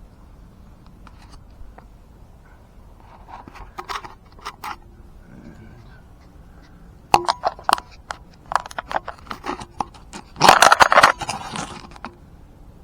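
Metal jack parts being handled during assembly: scattered clicks and knocks, then a quick run of clicks, ending in a louder scraping rattle about ten seconds in, as the height extension adapter and its hex bolts are fitted.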